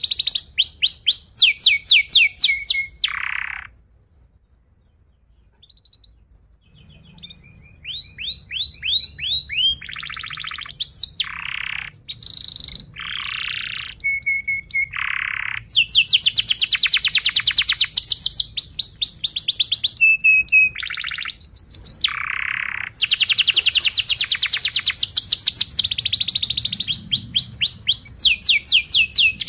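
Yellow domestic canary singing: runs of rapid repeated notes and long, tight fast trills ("rolls"), with a pause of about two seconds a few seconds in before the song resumes.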